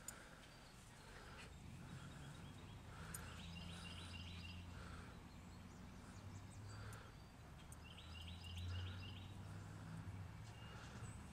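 Faint outdoor ambience: a small songbird repeats a short, quick series of high chirps a few times, over a low steady hum.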